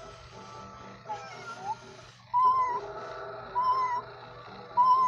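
Kid Connection walking electronic toy cat giving recorded meows: three short, warbling meows about a second apart in the second half, over a steady low hum.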